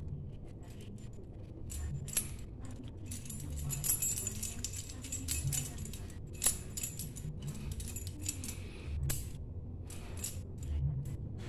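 Keys on a lanyard jangling and clinking in irregular bursts as a kitten bats and tugs at them, busiest about three to five seconds in, with a few sharper single clinks.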